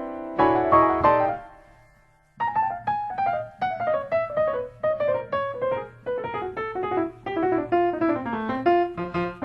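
Solo piano music. A few chords ring and fade out, then after a short pause a melody of single notes steps downward at an even pace.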